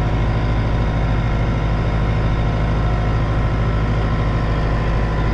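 Tractor engine running steadily under load while pulling a tillage implement through the field, heard from inside the cab.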